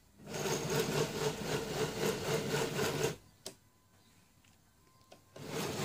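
Model train locomotive's electric motor whirring as it runs along the track. It runs for about three seconds and then cuts off suddenly; a single click follows, and the whirr starts again near the end.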